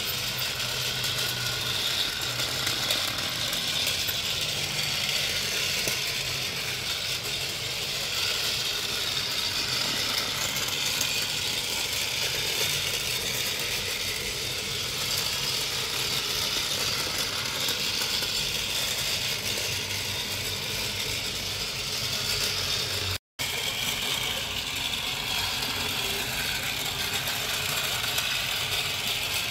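Small motor and plastic gears of a battery-powered pink toy train locomotive running round a plastic track: a steady whirring rattle. It cuts out for an instant about three-quarters of the way through.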